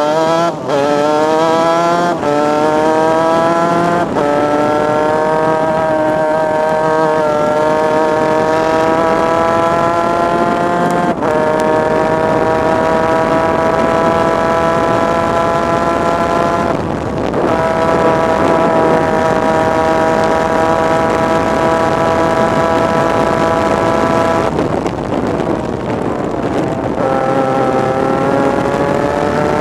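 Superkart's 250 cc two-stroke engine racing flat out, heard from on board. In the first dozen seconds the pitch climbs and drops back at several quick upshifts. It then holds high and steady, falls away briefly twice as the throttle is lifted for corners, and climbs again near the end.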